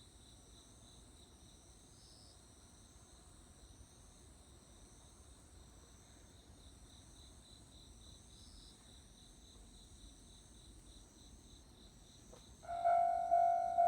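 Crickets chirping in a steady, pulsing trill. About twelve and a half seconds in, after a click, a level crossing's electronic warning bell starts ringing loudly, a repeated tone about twice a second, signalling that a train is approaching.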